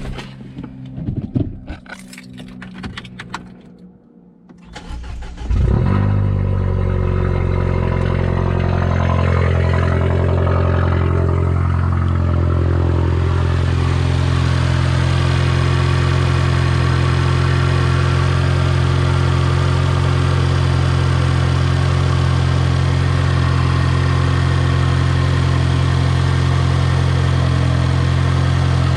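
A 2012 Mini Cooper S's N18 1.6-litre turbocharged four-cylinder engine starting about five seconds in, after a few light clicks and knocks, then idling steadily.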